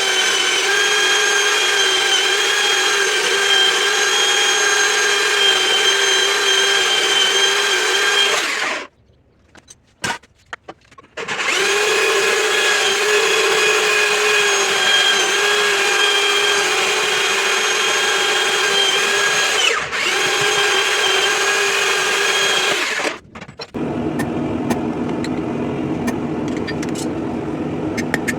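Power tool cutting a piece of railroad-spike steel, running steadily with a high, even tone in two long runs broken by a short pause. Near the end a lower, rougher running sound with light ticks takes over.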